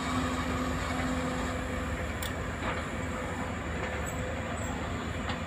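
CASE CX210B hydraulic excavator's diesel engine running steadily under load while the bucket digs soil, with a few sharp knocks about two seconds in and near the end.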